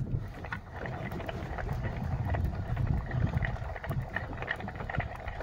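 Wind rumbling on the microphone aboard a small fishing boat at sea, with scattered light clicks and ticks.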